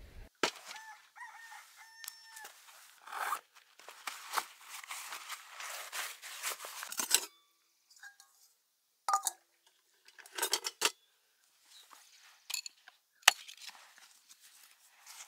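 A bird calls a few times in the first couple of seconds. Then come rustling and light metal clinks as a camp cook pot is handled and its lid pulled off, with one sharp click near the end.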